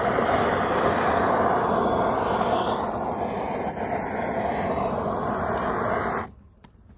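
Hand-held gas torch burning with a steady loud hiss while its flame is held into paper and sticks to light them; the hiss cuts off suddenly about six seconds in as the torch is shut off.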